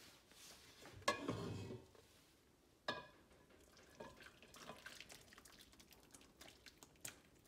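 Steel cooking pot lifted off a gas-stove grate with a knock and a short scrape, a metal clink about three seconds in, then thick chicken nihari gravy pouring and dripping into a serving dish in soft splashes.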